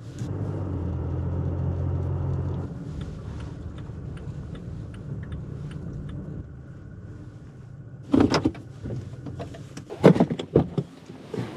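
Toyota pickup truck driving a short distance, its engine and road noise heard from inside the cab as a steady low hum, louder for the first couple of seconds and then quieter. About 8 seconds in and again about 10 seconds in come a few sharp clunks and clicks.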